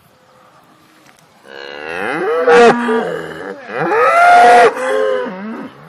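Cow mooing twice: two long moos, the first starting about a second and a half in and the second following straight after it.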